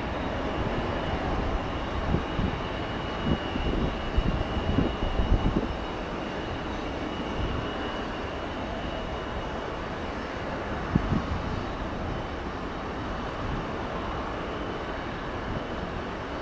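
Airbus A321neo jet airliner's engines heard at a distance as it departs, a steady broad rumble with a faint high whine. Wind buffets the microphone in low gusts during the first several seconds and once more midway.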